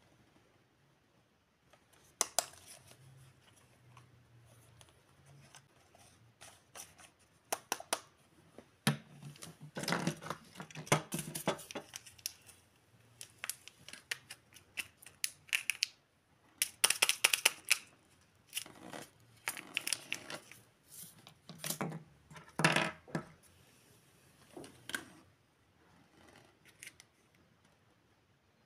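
Small plastic toy figures being handled: scattered clicks and taps with several denser clusters of clicking and rustling.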